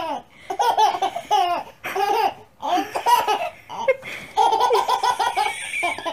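Baby laughing in repeated high-pitched bursts, with a quick run of laughs a little past four seconds in.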